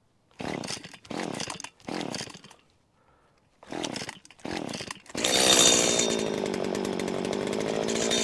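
Stihl FS85 two-stroke strimmer being pull-started: five short pulls of the recoil starter, then about five seconds in the engine catches and runs steadily. It is restarting after cutting out, which the owner puts down to overheating.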